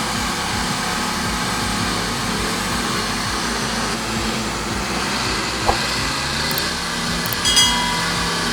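Heavy truck engine running steadily, with a short knock about two thirds of the way through and a brief high squeal near the end.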